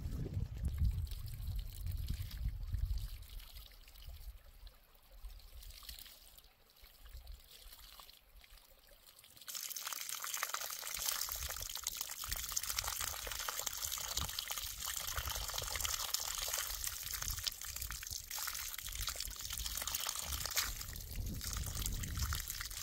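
Water pouring and splashing in a steady rush that starts suddenly about ten seconds in, after a low rumble and a quieter stretch.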